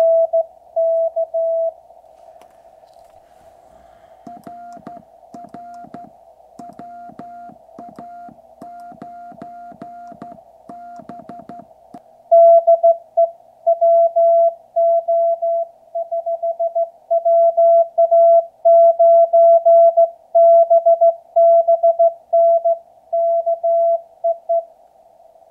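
QRP Labs QCX 40-metre CW transceiver sounding Morse code as a single tone of about 650 Hz keyed on and off, over a narrow hiss of band noise. The keying is fainter through the middle and louder again from about halfway on.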